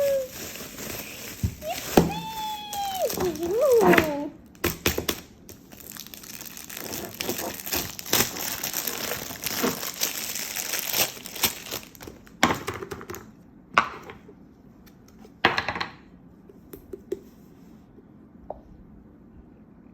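Plastic packaging crinkling and tearing as a squishy toy is unwrapped, in rustling spells that thin out to a few separate crackles after about twelve seconds. A child's short drawn-out vocal sound comes about two seconds in.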